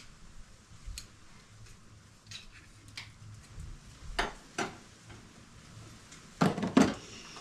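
Scattered clicks and knocks of hand tools and metal parts being handled while taking apart a car, with two louder clunks near the end.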